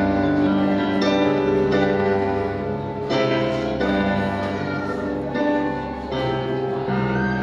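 Slow instrumental music: held chords that change every second or so, with a plucked, harp-like tone.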